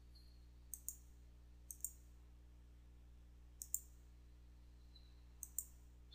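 Computer mouse button clicking: four quick pairs of clicks spread a second or two apart, over a faint low hum.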